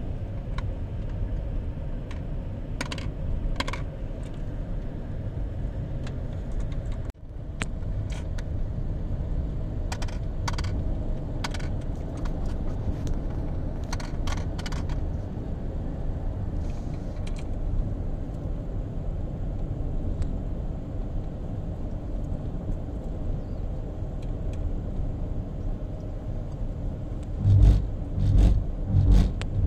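Road and engine noise heard inside a moving car's cabin: a steady low rumble with scattered light clicks and rattles. A few louder low thumps come near the end.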